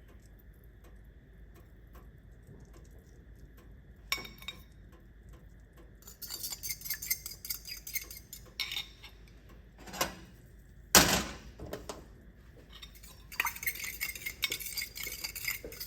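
Fork beating raw eggs in a bowl: rapid clinking of metal against the bowl in two spells, with a few sharp knocks of dishes or utensils, the loudest about eleven seconds in.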